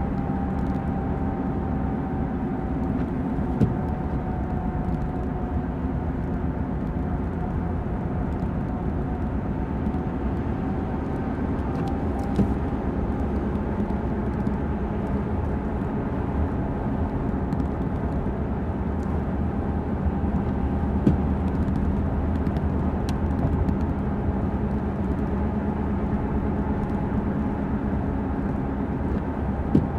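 Steady road noise inside the cabin of a 2005 Ford Explorer Sport Trac cruising on wet pavement: engine and tyre drone with a faint whine that wavers slowly in pitch. A few single light clicks stand out.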